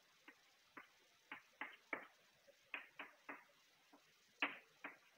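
Chalk on a blackboard: about ten faint, short taps and strokes, unevenly spaced, as short lines are drawn.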